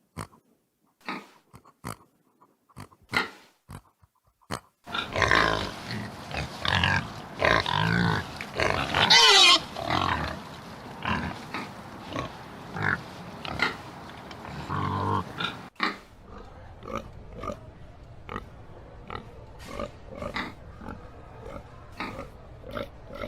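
Pigs grunting: short separate grunts at first, then a louder, busier stretch of overlapping grunts and higher calls with one loud high call about nine seconds in. After an abrupt change, steady repeated grunts continue over a constant background hum.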